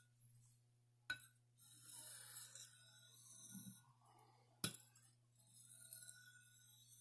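Buck 119 knife blade drawn across a sharpening stone in light strokes, a faint high scraping hiss in stretches, with two sharp clinks, one about a second in and one past the middle.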